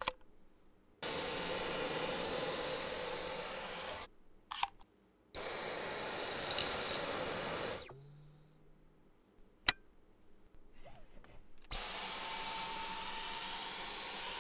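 Dyson V11 Animal cordless stick vacuum running in three bursts of about three seconds each, a steady rush of suction with a high whine. Sharp clicks fall between the bursts.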